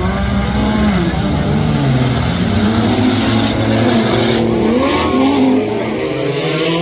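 Several junk stock cars' engines revving and accelerating together, their pitches rising and falling over one another.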